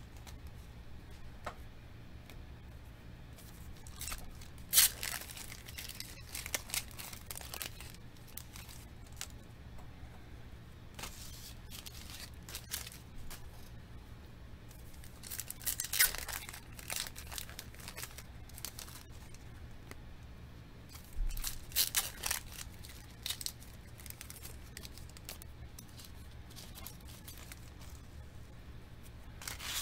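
Foil trading-card pack wrappers crinkling and tearing open in short, irregular bursts, with quieter handling of cards between them.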